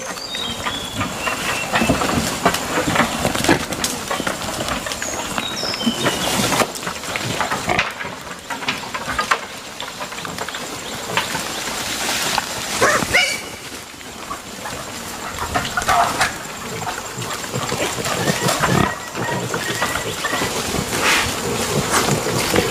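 A herd of wild boars feeding and rooting through leafy greens: steady crunching, rustling and snuffling, with an occasional short call. A few high chirps sound in the first several seconds.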